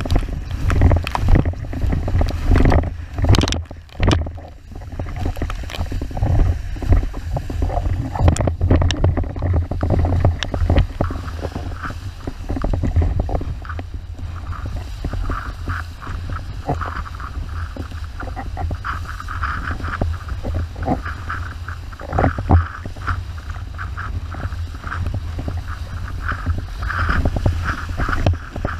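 Onboard sound of an 81-litre wave windsurf board planing fast over chop: heavy wind rumble on the microphone, water hissing and spraying, and the board slapping on the waves, with the slaps most frequent over the first ten seconds or so.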